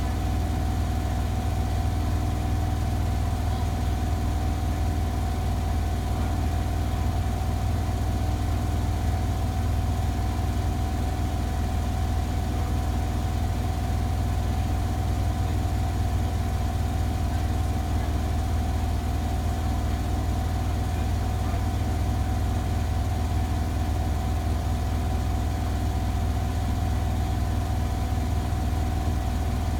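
Front-loading washing machine running in its rinse stage with a steady low hum and a faint steady whine, unchanging throughout.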